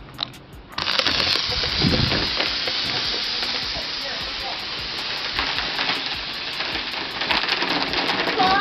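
Mentos-and-soda geyser erupting from the bottle: a short click, then a sudden rush of fizzing spray starting about a second in and running on steadily.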